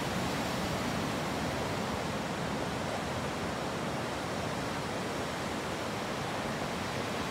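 Steady roar of ocean surf breaking along the shore, an even rush with no single wave standing out.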